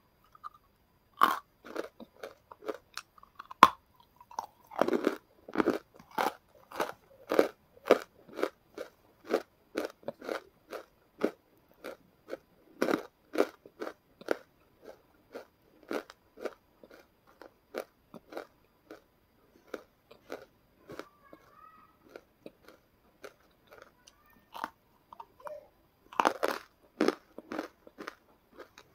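Close-up crunching as a person bites and chews a hard white chunk, a steady run of short crunches about one to two a second. A sharp crack a few seconds in is the loudest, and a quick flurry of crunches comes near the end.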